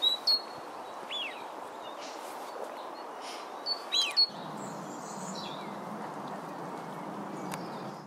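Eurasian wigeon drakes whistling from a flock on the water: a few short high whistles and two calls that fall in pitch, about a second in and about four seconds in, over steady background noise.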